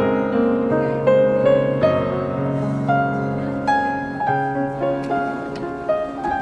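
Background music: a piano playing a gentle melody with sustained low notes.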